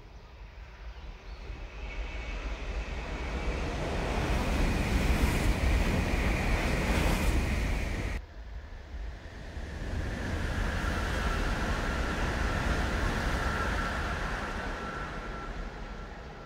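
Shinkansen bullet trains passing at speed. A rushing roar of air and rail noise swells for several seconds and breaks off abruptly about eight seconds in. A second pass then swells again with a steady high whine over the rush.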